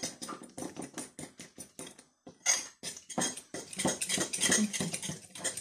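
A metal fork beating egg and spices in a ceramic bowl: quick repeated clinks of the fork against the bowl, with a brief pause about two seconds in.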